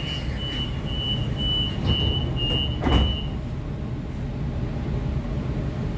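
Waratah electric train's door-closing warning: a high beep repeating a little over twice a second, ending just after a thump as the doors shut about three seconds in. A steady low hum from the stationary train runs underneath.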